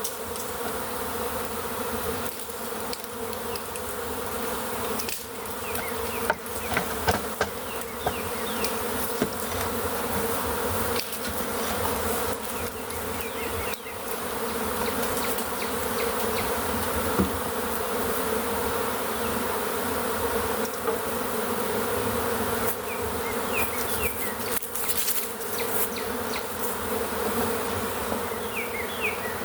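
A large swarm of honey bees buzzing loudly and steadily in flight, a dense drone of many wings, with a few sharp knocks here and there.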